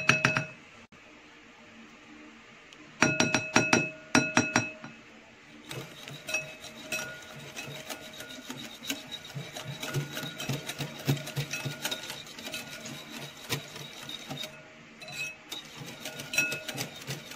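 A few sharp taps on a glass bowl that leave it ringing, about three seconds in, then a wire whisk beating tomato sauce in the glass bowl from about six seconds on: quick, steady clinks of the wires against the glass with a faint ringing of the bowl.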